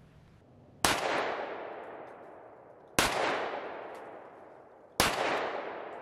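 Three gunshot bangs about two seconds apart, each trailing off in a long, smooth echo.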